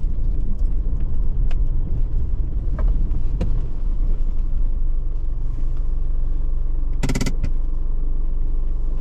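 Car with its engine running, a steady low rumble, with a few light clicks and rattles and a brief buzzing tone about seven seconds in.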